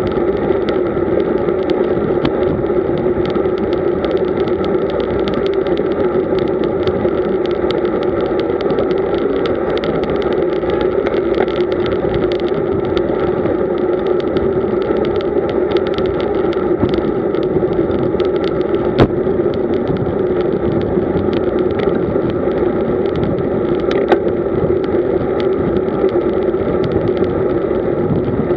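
Steady wind and road rush picked up by a camera on a road bike moving at about 40 km/h, with two sharp knocks, one past the middle and one later.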